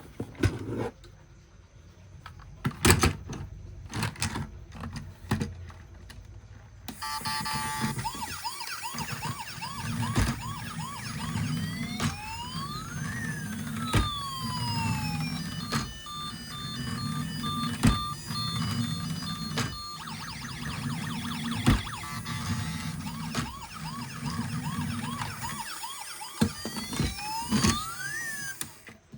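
A few clicks and knocks, then, about seven seconds in, electronic siren sound effects: wails rising and falling in pitch, with beeping tones over a pulsing beat. It cuts off suddenly near the end.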